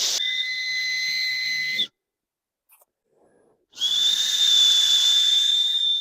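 An acorn cap held between the thumbs and blown across, giving a shrill, breathy whistle. Two blasts: one of about two seconds, then a longer one starting about four seconds in.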